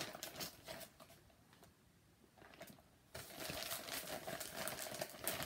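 Clear plastic zip bag crinkling as hands rummage inside it: short rustles at first, a quieter pause of about two seconds, then steadier, louder crinkling from about three seconds in.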